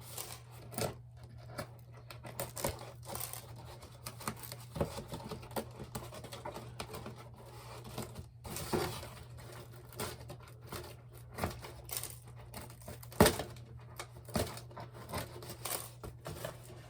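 Stick pins being tugged out one by one to free a glue-stiffened crocheted snowflake, giving irregular small clicks, taps and scratches, with one sharper knock about thirteen seconds in. A faint steady low hum runs underneath.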